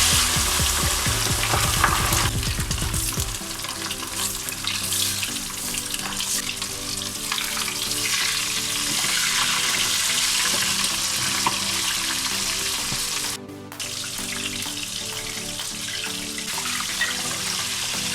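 Whole chicken deep-frying in smoking-hot sunflower oil in a kazan: a loud sizzle surges as it goes in, then settles into steady sizzling and crackling. Background music plays underneath.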